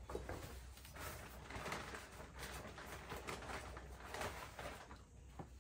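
Soil being added by hand to a hollowed-out pumpkin planter: soft, irregular rustling and scraping that dies down about five seconds in.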